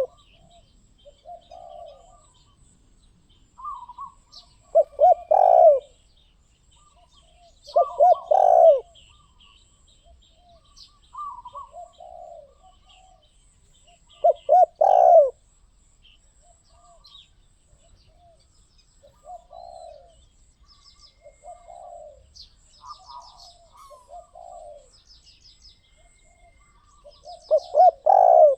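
Spotted dove cooing: loud phrases of several deep notes come four times, about 5, 8 and 15 seconds in and again near the end, with softer coos between. Small birds chirp faintly in the background.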